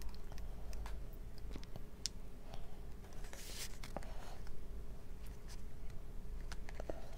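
A spoon cutting and scooping into a soft cream-filled mousse cake, breaking it open to let the filling spill out: scattered light clicks and taps, with a longer soft squishing scrape about three and a half seconds in.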